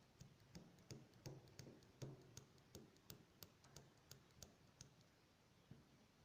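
Knife blade scraping the tip of a hot soldering iron in quick strokes, a faint click about three times a second, stopping about five seconds in. The scraping cleans the oxidised tip so that solder will stick to it again.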